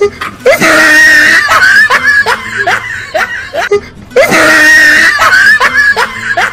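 Comedy scream-and-giggle sound effect: a high, held scream followed by a run of short rising squealing giggles, the whole clip playing again from about four seconds in.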